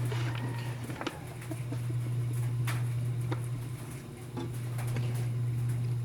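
Scattered light clicks and taps from handling the microphone wire and tools, over a steady low hum.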